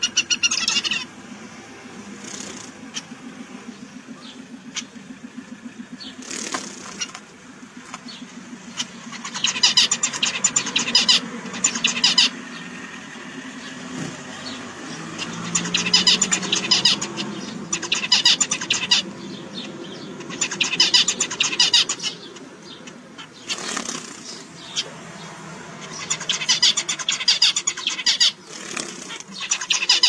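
Caged male zebra finches singing: about six bouts of buzzy, rapidly repeated song, each a second or three long, over a steady low hum.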